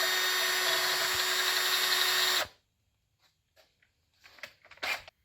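Handheld electric power tool running at a steady speed for about two and a half seconds, then cutting off abruptly, followed by a few light clicks and knocks of handling.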